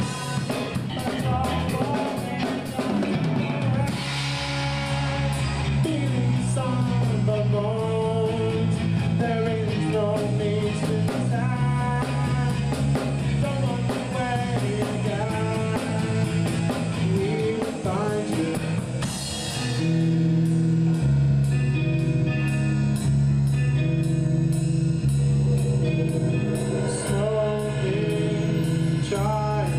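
Rock band playing an instrumental passage: drum kit with busy cymbal strikes, bass guitar holding long low notes, and a lead line with bending notes. A cymbal crash lands about 4 seconds in and another just before the band gets louder, about 20 seconds in.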